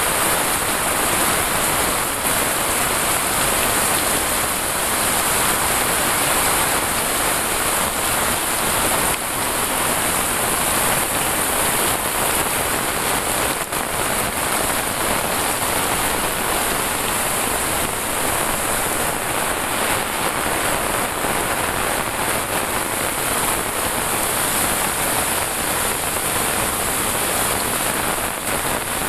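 Heavy rain pouring steadily, an even, dense wash of sound with no let-up.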